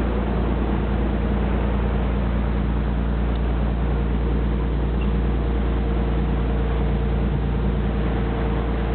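Motorboat engine running steadily with the boat under way: a constant low drone with a steady hum, over the rush of water along the hull.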